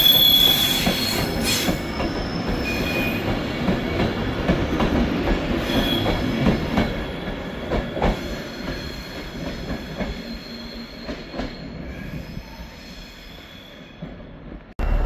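Class 390 Pendolino electric train running along the platform. Its wheels squeal with high steady tones at first, and there are scattered clicks of wheels over rail joints. The sound gradually dies away and cuts off abruptly near the end.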